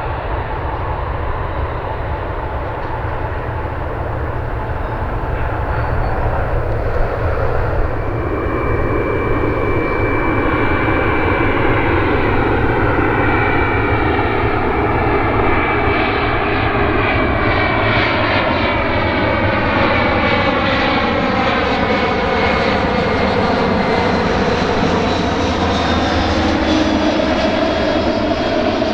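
Airliner on final approach flying past, its engine noise swelling from about eight seconds in with a steady high whine and sweeping, swirling tones that fall and then rise as it passes.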